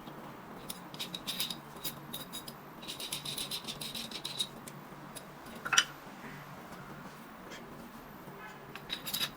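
Small parts being handled: scattered light clicks and rattles, with a quick run of clicks in the middle and one louder knock about six seconds in, over a steady low hum.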